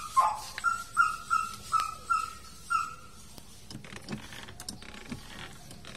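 A dog yipping: about seven short, high yips in the first three seconds, then a few faint clicks and rustles.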